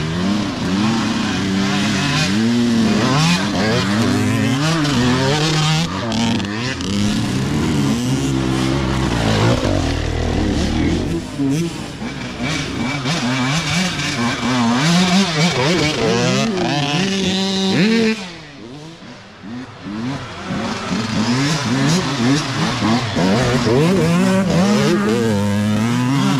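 Several dirt bike engines revving up and down as riders come through one after another, with the throttle rising and falling repeatedly; the engines drop away briefly about two-thirds of the way through.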